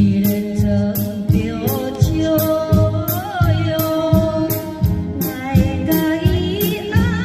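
A band performing a song: a steady drum beat with backing instruments under a sung melody, with a long wavering held note around the middle.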